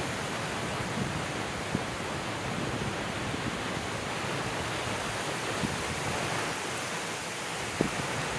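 Steady, even rushing hiss of water, as from a weir or overflow spilling beside the path.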